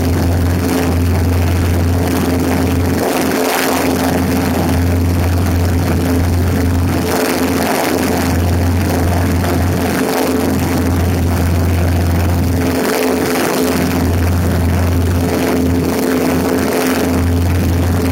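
Cessna 150's four-cylinder Continental O-200 engine and propeller droning steadily in cruise, heard from outside on the lift strut, with wind rushing over the microphone and buffeting it in uneven gusts.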